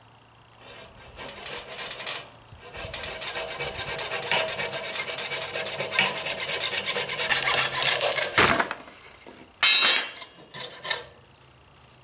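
Coping saw cutting through a wooden axe handle just below the head, in quick back-and-forth rasping strokes that start faint, grow louder, and stop about eight and a half seconds in. Two short, louder scraping bursts follow near the end.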